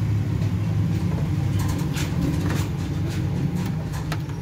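Steady low background rumble, with a few faint clicks as pliers work at the melted fuse holder on the stabilizer's metal case.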